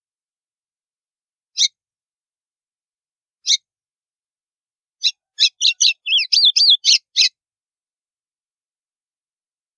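White-throated seedeater (golinha) singing its 'estalo' song type: two single sharp notes a couple of seconds apart, then about five seconds in a quick two-second phrase of sharp notes and slurred whistles.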